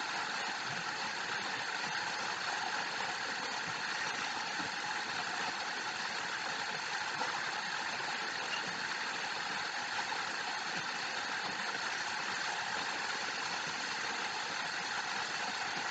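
Steady, even hum and hiss of background noise.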